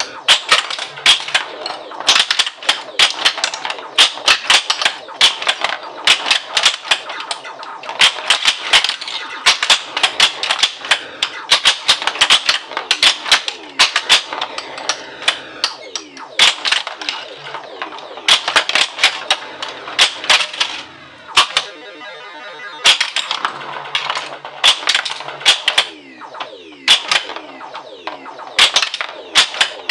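1980 Williams Black Knight pinball machine in play: rapid, irregular clacking of flippers, bumpers and the ball striking the playfield, mixed with the game's electronic sound effects. About three-quarters of the way through, the clacking briefly lets up under a warbling electronic sound.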